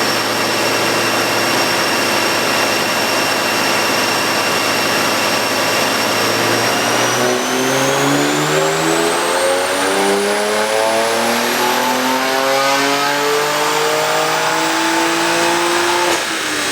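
BMW 335is twin-turbo N54 inline-six running on a chassis dyno: held at steady revs, then a full-throttle pull from about seven seconds in, the revs climbing steadily for about nine seconds before the throttle is lifted near the end. A high whine climbs with the revs.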